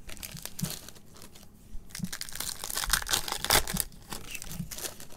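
Foil wrapper of a Topps Allen & Ginter Chrome baseball card pack crinkling and tearing as it is handled and ripped open, in a string of irregular sharp rustles, loudest about three and a half seconds in.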